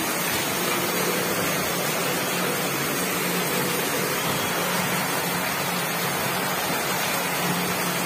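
Heavy rain pouring down, a steady dense hiss with no let-up.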